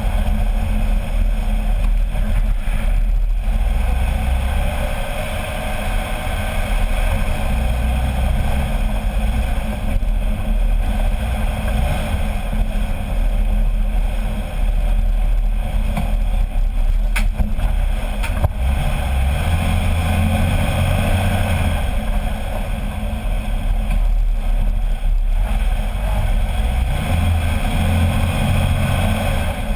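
Jeep Wrangler LJ Rubicon driving on pavement, heard from under the front axle: a loud, steady rumble of tyres, road and drivetrain that wavers in level.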